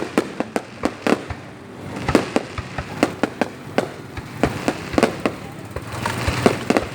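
Fireworks going off: a rapid, irregular string of sharp bangs and cracks, several a second, over a continuous rumbling haze of further bursts.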